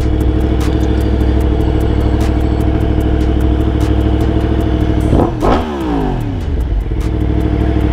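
Yamaha MT-10 crossplane inline-four with an Akrapovic exhaust idling steadily, with one quick throttle blip about five seconds in that rises sharply and falls back to idle.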